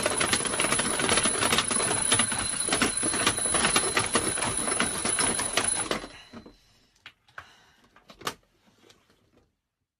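Twin-bell alarm clock ringing with a fast metallic clatter, stopping about six seconds in, followed by a few faint clicks.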